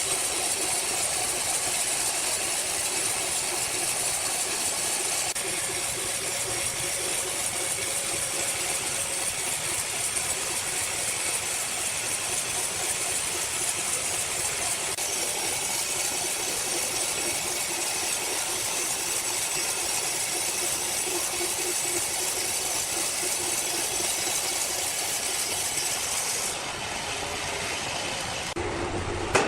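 Sawmill machinery running: a steady mechanical din with a strong high hiss, changing abruptly twice near the end.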